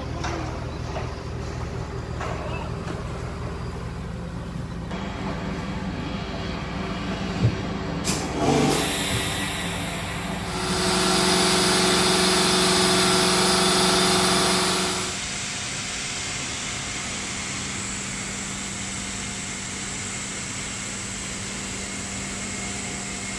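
Cristanini decontamination spraying equipment running with a steady mechanical hum. A few knocks come about a third of the way in, then a louder stretch with a strong hiss for about four seconds before the steady hum returns.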